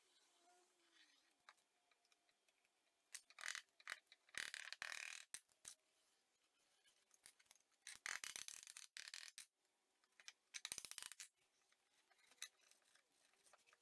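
Faint scraping and rubbing on wood in three short spells, as glued pine inlay strips are worked into grooves in red gum boards by hand, with a rag and a small tool.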